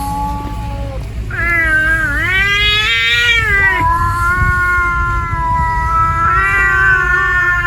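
Cat caterwauling: a long yowl that bends up and down in pitch starts about a second in, then carries on as a steadier drawn-out howl. It is the threatening yowl of a stray cat squaring off for a fight.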